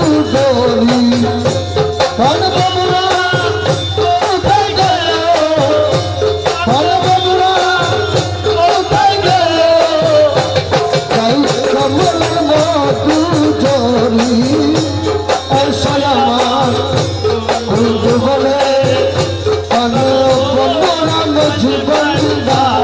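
Maizbhandari devotional song: a sung melody over steady, fast rattling percussion.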